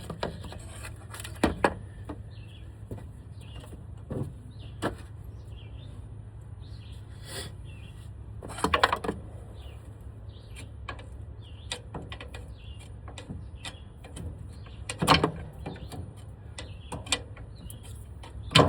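Scattered metal knocks and clanks of hand tools working a steering shaft's universal-joint yoke loose, with louder bursts of knocks a little before halfway and again about three quarters of the way through, over a steady low hum.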